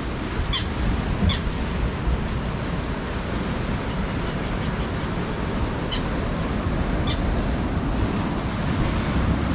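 Sea waves breaking and washing over a rocky shore: a steady rushing with a strong low rumble, and a few short high chirps now and then.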